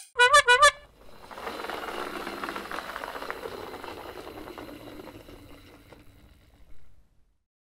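A brief cartoon sound effect of quick pitched notes, then a steady rattling rolling sound of a wooden toy crocodile's wheels running along and up onto wooden bridge planks, fading out about six seconds in.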